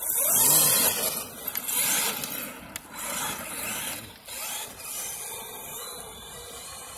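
Traxxas X-Maxx 6S electric RC monster truck running fast over loose dirt: gritty hiss of the tyres throwing dirt and grit with a motor whine that rises and falls as it passes, loudest about half a second in, then fading in smaller surges as it drives away.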